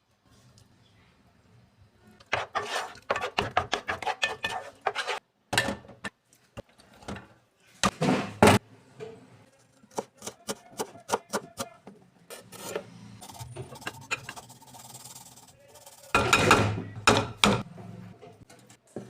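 Kitchen food-preparation sounds: runs of quick scraping and knocking strokes of a utensil on a board or dish, loudest in a rapid run early on and in a burst near the end.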